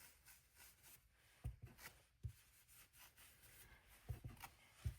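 Near silence, with a few faint soft taps and rubs from hands handling paper and tools on a table.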